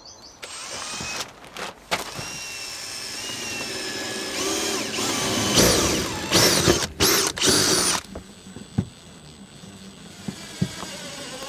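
Makita cordless drill with a twist bit drilling into a black plastic housing, its motor whine rising and falling with the trigger, then a few short stop-start bursts before it stops about eight seconds in. Light handling clicks follow.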